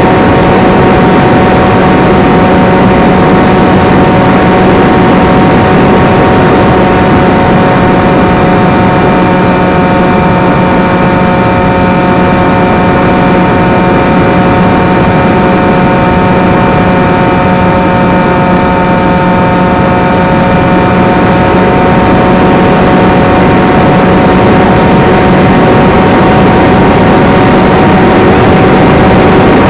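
Electric motor and propeller of a small FPV flying wing in flight, heard from its onboard camera: a loud, steady motor whine over wind rush, holding much the same pitch throughout.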